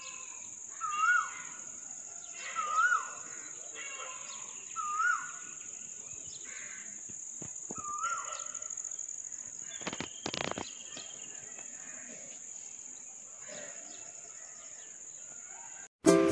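Steady high-pitched drone of insects, with a bird giving a short whistled call four times, each rising then falling, in the first eight seconds. A brief rustle about ten seconds in; the insect drone cuts off near the end.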